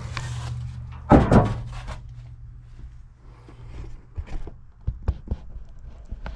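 A person climbing into an old Jeep Wagoneer's cab. A loud thump comes about a second in, then a few sharp knocks and clicks against the bodywork near the end.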